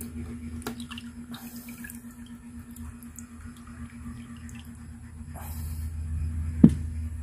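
Fish being lifted out of a bag of water and handled: water dripping and sloshing, with scattered clicks and short rustles, over a steady low hum. One sharp knock comes near the end.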